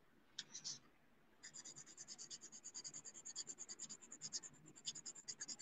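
Soft B-grade Lyra graphite pencil scratching on drawing paper in shading strokes. A few faint scrapes come first, then from about a second and a half in a quick steady back-and-forth of about five strokes a second.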